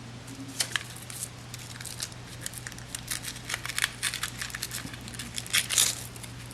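Hands handling the RC truck's hook-and-loop battery straps and plastic parts: scattered scratchy rustles, crackles and light clicks, busiest in the second half. A steady low hum runs underneath.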